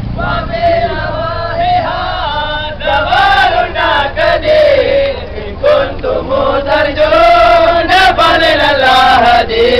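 A large group of men chanting together in unison, a sung chant whose melody rises and falls.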